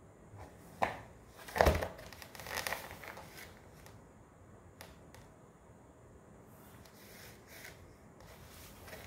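Cardboard boxes crinkling and scraping as a cat shifts its body and reaches a paw into a box: a sharp crackle about a second in, the loudest one just after, a short run of scratchy scraping, then only a few faint ticks.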